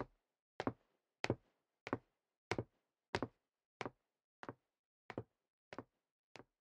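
Foley footsteps walking away, a quick two-part heel-and-toe step about every two-thirds of a second, about ten steps in all, growing slowly fainter.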